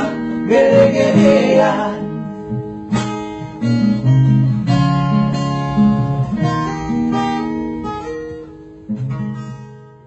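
Closing bars of a song, played on what sounds like acoustic guitar. A sung voice trails off in the first two seconds, then single plucked notes carry on and fade out at the very end.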